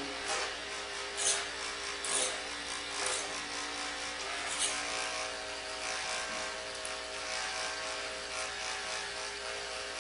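Electric hair clippers, guard removed, buzzing steadily as they are run over a comb to blend short hair, with a few brief scratchy moments as the blades pass through the hair.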